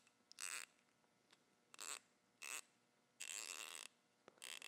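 ICON 92-tooth 1/4-inch-drive stubby ratchet being swung back and forth by hand, its fine-tooth mechanism giving five short bursts of rapid clicking, the fourth a little longer than the rest.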